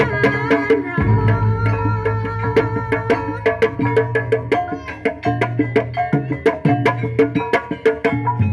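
Live Javanese gamelan accompaniment for kuda kepang: kendang hand drums struck in a quick, steady rhythm over ringing bronze gong-chimes and metallophones, with low sustained gong tones underneath.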